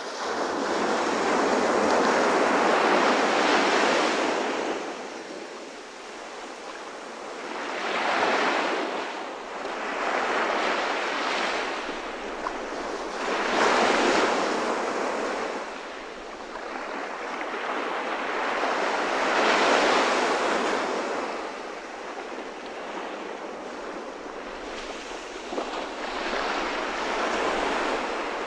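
Ocean surf: waves washing in and receding, the hiss swelling and fading every few seconds.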